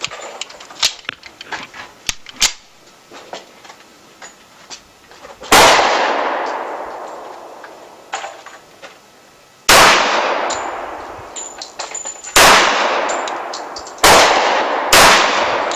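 Dan Wesson Valor 1911 pistol fired five times at an uneven slow pace, the shots coming closer together near the end, each shot followed by a long fading echo. A few faint sharp cracks come before the first shot.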